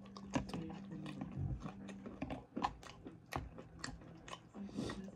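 A person chewing and crunching a mouthful of salad greens and chicken, with many short sharp crunches; a faint steady low hum runs underneath.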